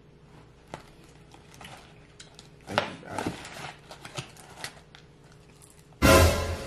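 Cardboard takeout box and its paper liner being handled, with light rustles and taps. Near the end comes one short, loud crunching bite into a fried chicken wing.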